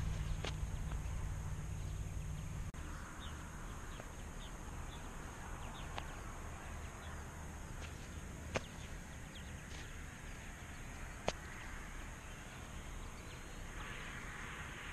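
Outdoor ambience: faint bird chirps and a few sharp clicks over a steady hiss, with a low rumble that stops about three seconds in.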